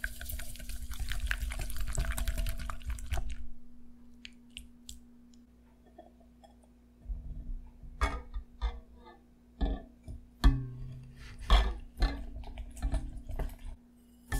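A wire whisk scraping and rattling in a bowl as it mixes granulated sugar into egg whites, for about three seconds. After a quiet gap, a series of knocks and clinks from a glass bowl being set onto a stainless-steel saucepan.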